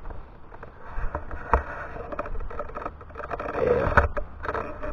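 Wire-mesh live cage trap holding a raccoon being bumped and rattled, with scraping and rustling. There is a sharp knock about one and a half seconds in and a louder one near the end.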